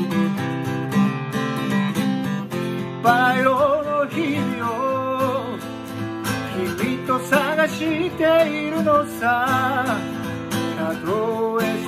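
Acoustic guitar strummed in steady chords, with a man singing along; the voice comes in about three seconds in.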